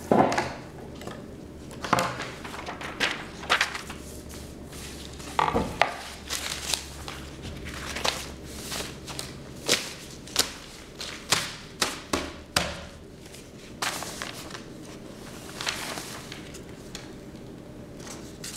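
Printed paper sheets being handled and shifted on a wooden table: an irregular string of short, crisp crinkles and taps, a few of them loud.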